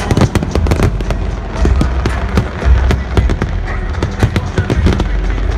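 Stadium pyrotechnic fireworks going off: a rapid, dense run of sharp crackling pops.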